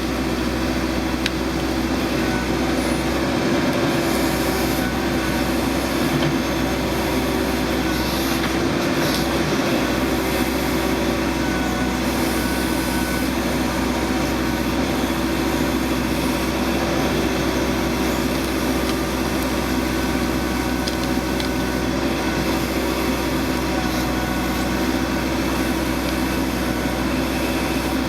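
Backhoe loader's diesel engine running steadily at working speed.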